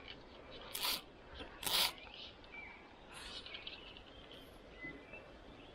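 Two short swishes about a second apart from an angler's arm and fly rod moving through a cast, over faint bird chirps.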